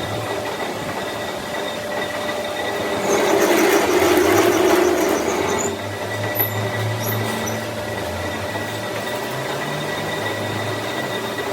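A workshop machine running with a steady hum and whine, swelling louder for a few seconds from about three seconds in.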